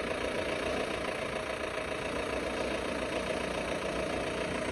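Motor vehicle engines running steadily at low revs, a sport motorcycle and a small truck creeping through a shallow rocky stream crossing.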